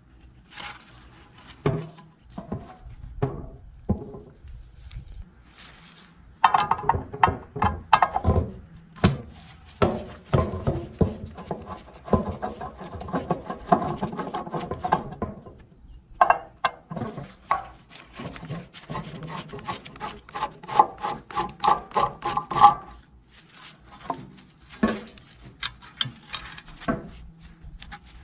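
Scraping, rubbing and clicking of a screwdriver and gloved hands working on a rusty cast iron Dutch oven lid. Scattered clicks at first, then long runs of quick scraping strokes, with more clicks near the end.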